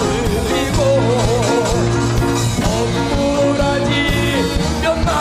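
Live band performance of a reworded Korean folk song: a male traditional-style singer sings with wide, wavering vibrato over steady bass notes, guitar and regular drum beats.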